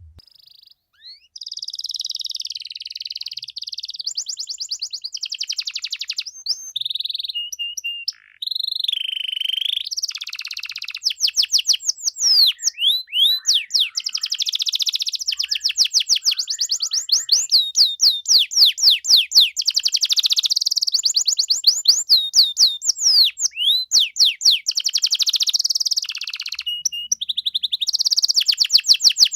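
Canary singing vigorously in one long, continuous song of rapid trills, runs of quick repeated notes and fast sweeping notes, with a brief break a few seconds in.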